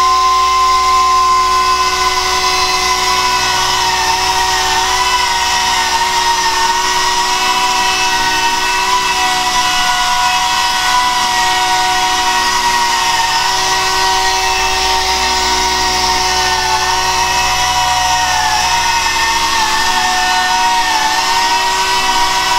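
Air-powered dual-action (DA) sander running steadily on fresh paint during wet sanding with fine paper, a high whine over a hiss, its pitch wavering slightly now and then.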